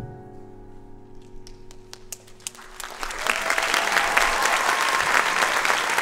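The last chord of the dance music rings out and fades as scattered clapping starts. Within about three seconds this grows into full, steady audience applause.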